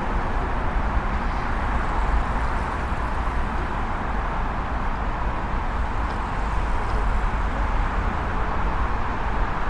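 Steady traffic noise: an even, continuous rumble and hiss of road traffic with no distinct single events.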